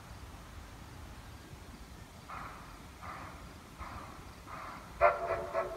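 Steam locomotive exhaust chuffing slowly, four puffs about three-quarters of a second apart, followed near the end by a louder, short sound with a pitched tone.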